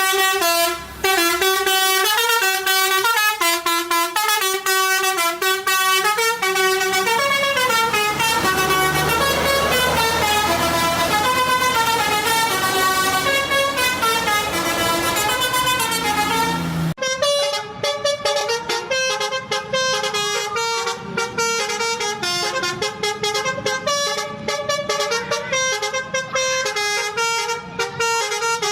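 Musical truck horn playing a melody in held notes that step up and down in pitch. About seventeen seconds in it cuts abruptly to a run of quick, short notes.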